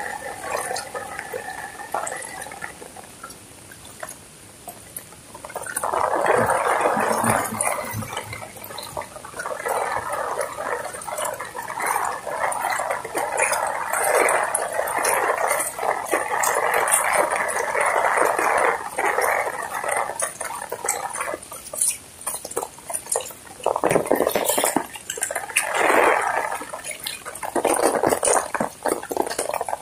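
Floodwater rushing and splashing as it runs over a road. The rush swells loud about six seconds in and holds for about fifteen seconds, then comes back in three short surges near the end.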